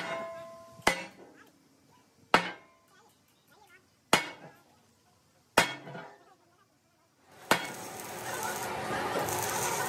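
Sledgehammer striking the steel plate welded onto an excavator bucket: six heavy blows, roughly one and a half to two seconds apart, each with a short metallic ring. In the last two seconds a steady noise takes over.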